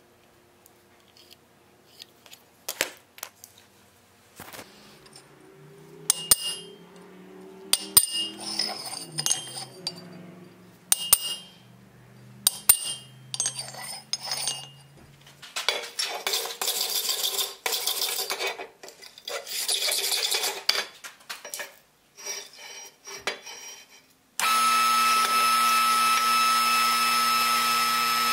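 Steel clinking on steel plate and hammer taps ringing on an anvil, with several noisy scraping strokes on metal. About 24 seconds in, a loud, steady machine hum starts suddenly: the power press used to bend a red-hot bar in a V-die.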